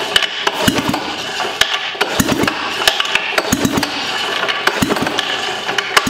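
Sachs KM24 Wankel rotary engine being cranked by hand on its recoil pull starter, a pull about every second and a half, each a quick run of rattling knocks, without firing: cranking to draw fuel up to the carburettor.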